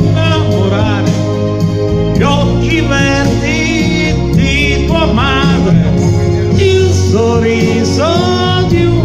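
A man singing an Italian love ballad into a microphone over a backing track, holding long wavering notes over a steady bass line.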